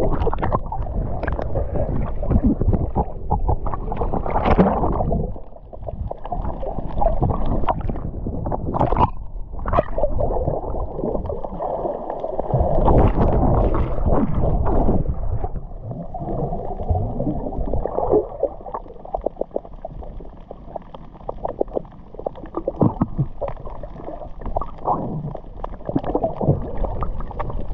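Water gurgling and sloshing over a camera held underwater, muffled, with many small knocks and crackles of bubbles and water on the housing.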